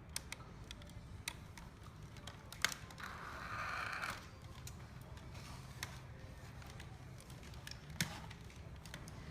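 Hands handling a plastic collectible figure: scattered light clicks as armor parts are snapped back into place, with a short rustle about three seconds in.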